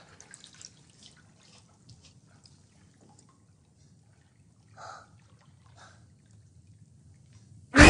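Faint drips and small trickles of bathwater in a tub, with a soft slosh about five seconds in. At the very end a sudden loud hit cuts in.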